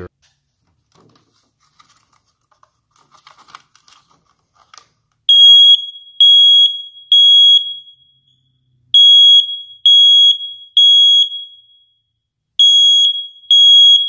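First Alert hardwired smoke alarm sounding on its test button: a loud, high beep in groups of three with a short pause between groups, starting about five seconds in after a few faint handling clicks. Its red interconnect wire is disconnected.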